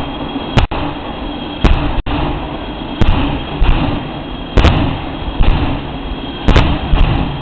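A series of about eight sharp bangs, roughly one a second, over a steady rumble.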